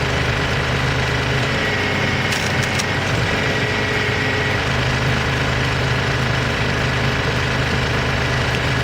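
Tractor engine running steadily while it powers a hydraulic wood splitter, with a few faint clicks about two to three seconds in.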